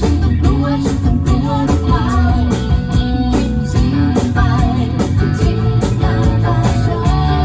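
Live band playing a rock song at a sound check: guitar and drums with a steady cymbal beat, and a singing voice over the top.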